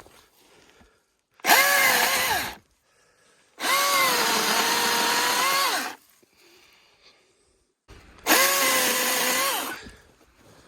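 Milwaukee M18 cordless electric chainsaw running in three bursts while limbing a felled tree: short, long, then short again, each spinning up quickly at the trigger pull and winding down on release, with near quiet between.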